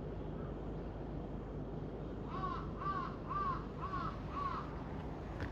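A crow cawing, five short caws in quick succession about halfway through, over a steady low background rumble.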